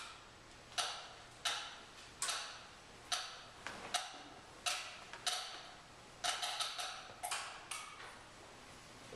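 About a dozen sharp taps on a hard surface at an irregular, unhurried pace, each with a short ringing decay.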